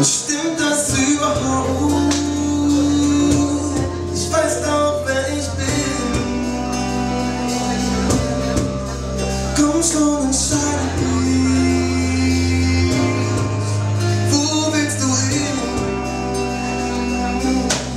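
Live band playing a song on electric guitar, acoustic guitar, upright bass and drums.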